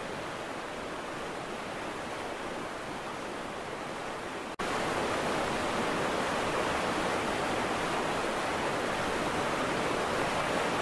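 Steady rushing noise of fast floodwater. It turns louder and brighter at an abrupt cut about four and a half seconds in.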